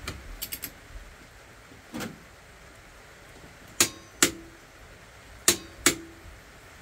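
Click-type torque wrench set to 30 ft-lb clicking as it reaches its setting on a stock Ford Cleveland oil pump drive shaft. There are sharp clicks in two pairs about half a second apart, each with a brief metallic ring, after a few faint light ticks near the start.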